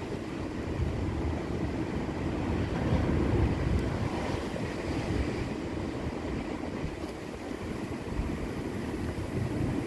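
Wind rumbling on the microphone, with sea surf beneath, unsteady and without any rhythm.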